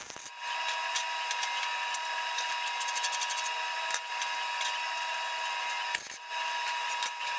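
Arc welding on thin sheet steel and angle iron: a steady crackling hiss, with brief breaks near the start and about six seconds in.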